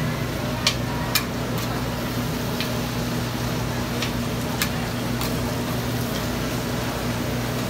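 Metal spatula clicking and scraping against a large round griddle several times as oyster omelettes with egg and greens fry on it, over a steady hiss and a low steady hum.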